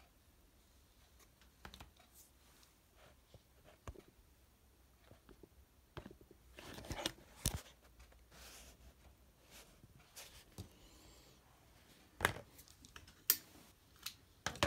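Light handling noises from small craft items on a desk: scattered taps and clicks, a stretch of rustling about halfway through, and two sharp clicks near the end.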